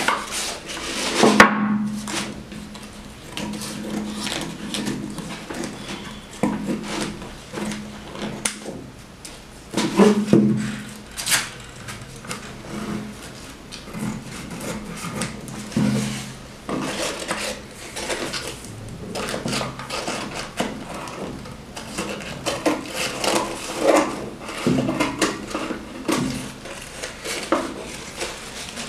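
Scissors cutting through crumpled kraft paper (bread-bag paper) glued onto an MDF box, trimming the excess along the edge; the stiff paper crackles and rustles irregularly as it is snipped and handled, loudest about a second and a half in and again around ten seconds in.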